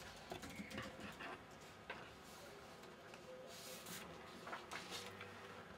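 Quiet desk sounds: a few soft taps and clicks, then paper rustling as printed sheets are handled, over faint room tone.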